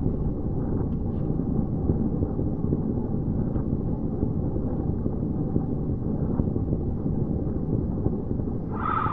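A steady, dense low rumble on the film's abstract soundtrack, with a brief pitched cry near the end.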